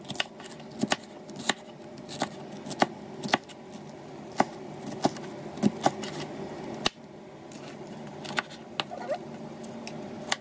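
Kitchen knife slicing a green bell pepper into thin julienne strips, the blade knocking on the cutting board in irregular strokes, about one or two a second.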